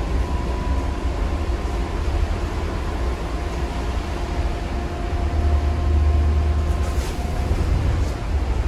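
Cabin noise of a battery-electric articulated city bus on the move: a steady low rumble from the road and running gear, with a faint steady whine above it. The rumble grows louder for a second or two past the middle, and a few light rattles come near the end.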